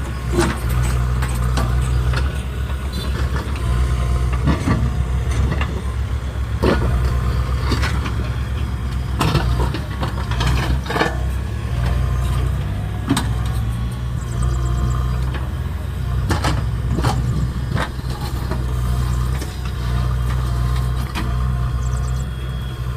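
Diesel engine of a JCB 3DX backhoe loader running steadily, with sharp knocks and clanks every second or few.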